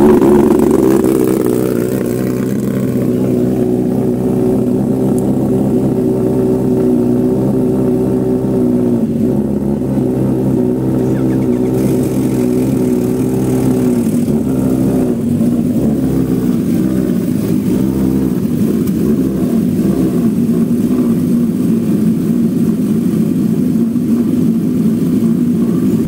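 Sport-bike inline-four engines idling while they warm up, a steady high idle. There is a brief throttle blip right at the start, and the idle drops a notch about nine seconds in.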